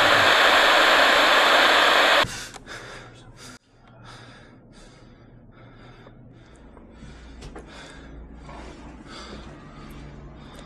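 A loud steady rushing noise cuts off suddenly about two seconds in, and a man then breathes quickly and heavily, about two gasping breaths a second.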